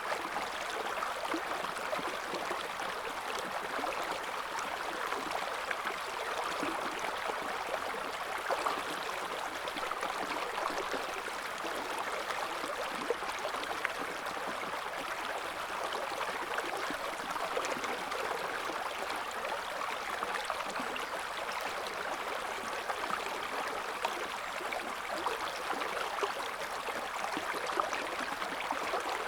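River water flowing steadily over stones, an even rushing babble with small splashes and gurgles.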